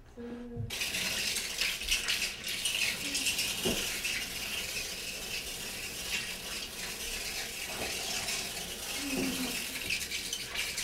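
Running water spraying and splashing into a bath during a dog's hydrotherapy: a steady hiss with many small splashes, starting about a second in.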